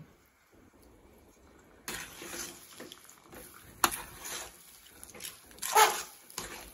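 Metal ladle stirring thick, sticky cornflour halwa with ghee in an aluminium pan: wet squelching and scraping, starting about two seconds in, with a few sharp clicks of the ladle against the pan and the loudest squelch near the end.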